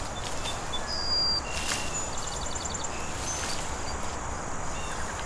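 Outdoor countryside ambience: a steady hiss of breeze through grass and trees, with scattered high bird chirps and a quick run of chirps about two seconds in.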